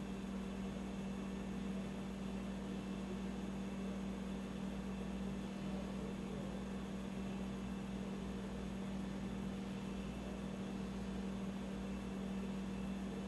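Steady low electrical-sounding hum under a constant hiss, unchanging throughout, with no distinct events.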